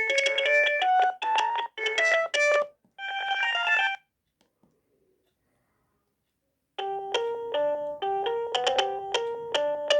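Alcatel OneTouch E230X mobile phone playing its built-in ringtones: a quick electronic melody of short notes stops about four seconds in, and after nearly three seconds of quiet a different ringtone melody starts.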